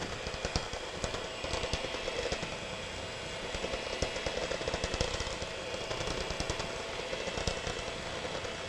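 Electric hand mixer running steadily in a bowl, its beaters rattling rapidly against the sides as it mixes a runny lemon glaze of confectioners' sugar, lemon juice and water.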